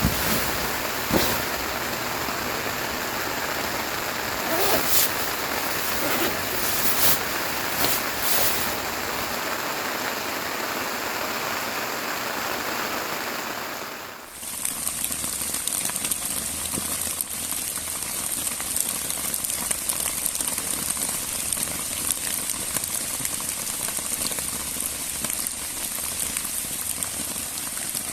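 Steady heavy rain, with a few sharper drips or taps in the first half. About halfway through, the sound cuts to a brighter, hissier downpour.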